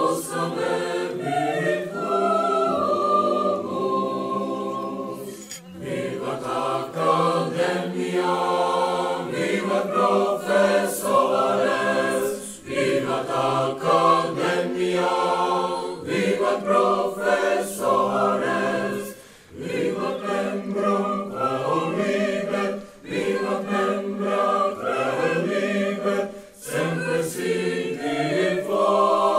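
A group of young men singing a song together in chorus, in long sung phrases with brief pauses for breath between them.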